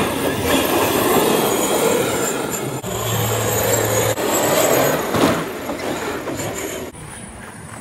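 Large-scale 1/5 RC trucks racing on a clay track, a loud, dense noise of motors and tyres that drops off sharply near the end.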